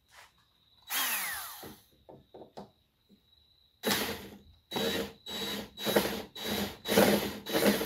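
Cordless drill-driver running on screws: one short run about a second in that slows as it stops, then about eight quick trigger pulls in a row from about four seconds in.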